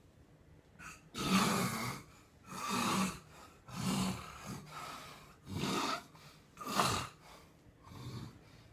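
A man snoring heavily: a quick run of rough, rasping snorts with a low buzz, about one a second, starting about a second in and growing weaker near the end.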